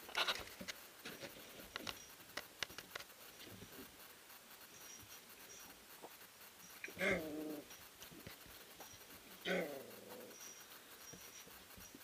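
Three-week-old Eurohound puppies wrestling in wood shavings: scuffling and clicking of paws and shavings in the first few seconds, then two short puppy growls, about two and a half seconds apart, in the second half.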